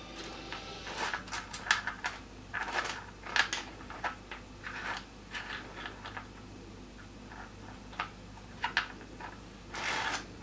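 Rough opal pieces clicking and scraping against one another as a hand picks through and turns them over: a run of irregular short clicks and rustles, with a louder cluster near the end.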